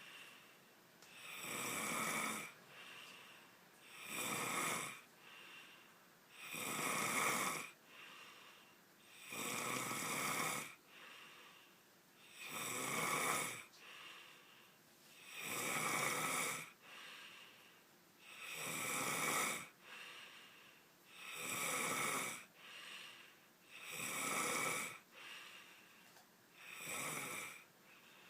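A person snoring loudly: a rasping snore about every two and a half to three seconds, with a softer breath between each one.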